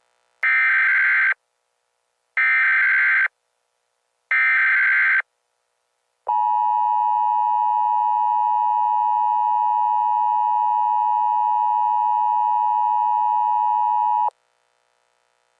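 Emergency Alert System tones: three short screeching data bursts of the SAME header, about a second apart, then the steady two-tone EAS attention signal held for about eight seconds before it cuts off. Together they announce an incoming emergency alert.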